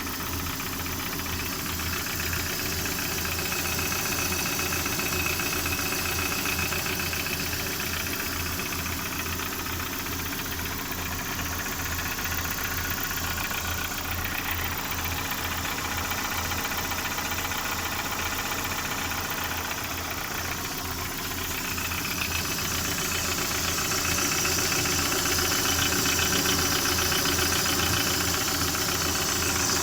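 Lada Priora's four-cylinder petrol engine running with a steady, rapid knock keeping time with the engine; the owner suspects the piston group, though the engine burns no oil and pulls well.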